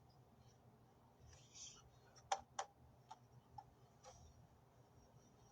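Near silence with a few faint, scattered clicks in the middle.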